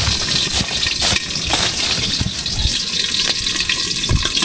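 Liquid poured into a hot pan of frying chicken wing mids, hissing and sizzling as it meets the oil, with a few dull knocks.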